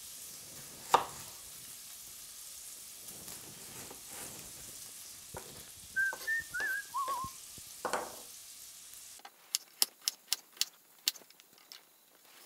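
Bacon sizzling in a cast iron skillet while a knife cuts an onion on a wooden cutting board, with a few short wavering whistled notes about six seconds in. About nine seconds in the sizzle stops suddenly, and a quick run of knife chops on the board follows.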